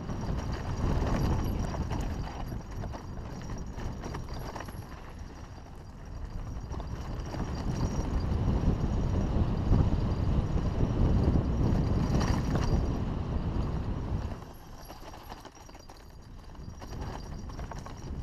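Haro hardtail mountain bike clattering and its tyres crunching over a rough dirt trail on a fast descent, with wind rushing over the microphone. The rattle and rumble are loudest in the middle and drop sharply quieter about fourteen seconds in.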